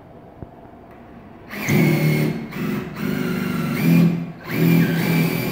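Cordless drill/driver running in three short bursts about a second and a half in, driving screws into the drywall window frame; the motor pitch rises as each burst starts.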